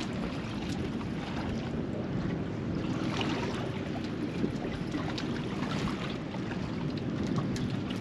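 Wind buffeting the microphone over water slapping against the hull of a small drifting boat on a choppy sea: a steady rushing noise with a few faint ticks.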